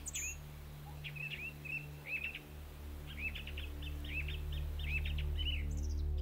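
Small birds chirping in quick runs of short calls, over a low steady drone.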